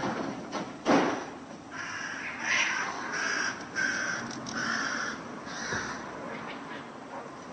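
A crow cawing, a run of about six short harsh caws, while it harasses cats. About a second in there is a single louder harsh burst.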